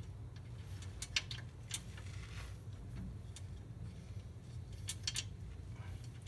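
Scattered light metallic clicks and clinks from rear sway bar mounting bolts and bracket being handled and worked into holes that are not lined up, over a low steady hum.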